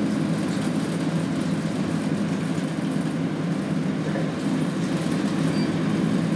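Steady low drone of a Nishitetsu city bus heard from inside the cabin: engine and running noise.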